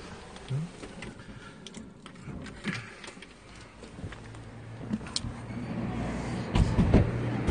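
Street noise: a low, steady vehicle engine hum that comes in about halfway through, with scattered rustles and knocks from the phone being handled against a jacket, loudest near the end.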